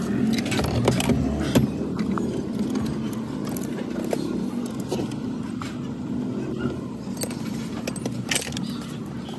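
Scattered sharp metallic clicks and clinks as the steering column's ignition lock assembly is handled by hand, over a steady low hum.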